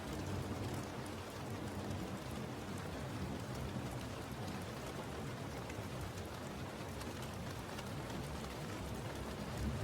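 Steady rain falling, an even rushing wash with a dense patter of drops.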